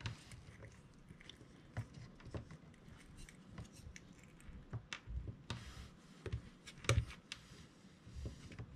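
Faint, irregular clicks and scrapes of small hand tools and fingers handling the plastic parts of an opened hot glue gun, with a sharper click about seven seconds in.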